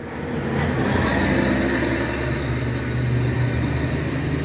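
A motor vehicle's engine running steadily and close by, getting louder about half a second in and then holding a low, even pitch.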